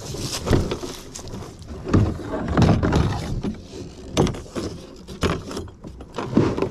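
Plastic kayak hull knocking and scraping while being pushed off the bank into the water, with a series of irregular thumps about a second apart and gear rattling.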